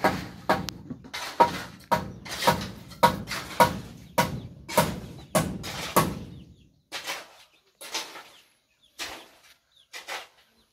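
Footsteps on a concrete floor, about two steps a second, thinning out and fading after about six seconds.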